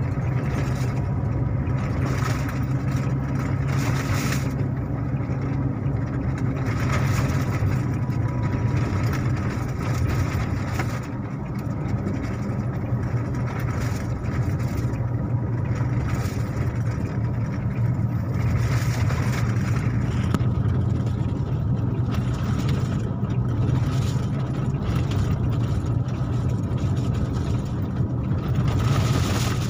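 Steady engine hum and tyre noise heard from inside the cabin of a car driving at a constant pace.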